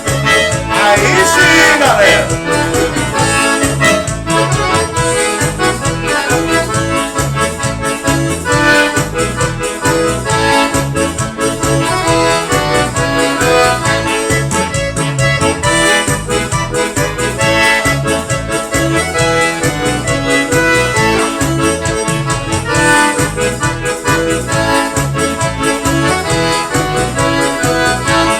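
Forró band playing an instrumental arrasta-pé, the accordion leading over a steady, even beat.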